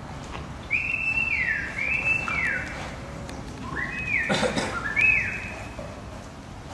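A person whistling to drive cattle: four sharp whistles, each holding a high note and then sliding down. A short rough noise sounds about four seconds in.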